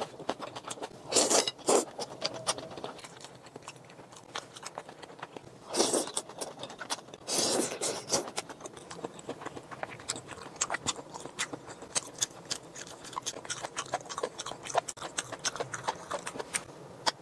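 A person eating stir-fried noodles close to the microphone: chewing with many small wet mouth clicks, broken by a few louder slurps, the longest near the middle.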